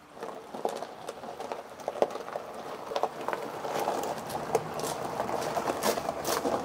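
Gravel crunching under the tyres of a hand-pushed dune buggy and under the footsteps of the person pushing it, with many small crunches and clicks, growing louder as it rolls out across the driveway.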